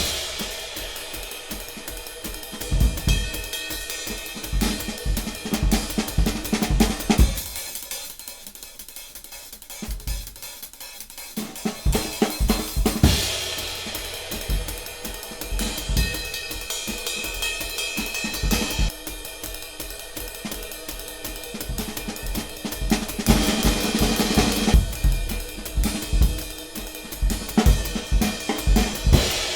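Jazz soundtrack music driven by a drum kit, with cymbals, hi-hat, snare and bass drum keeping a steady beat. The drums drop out for a few seconds about eight seconds in, then come back.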